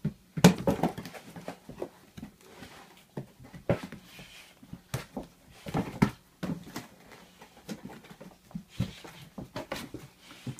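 A Rottweiler tearing and chewing a corrugated cardboard box: irregular crackling rips and crunches, loudest in the first second.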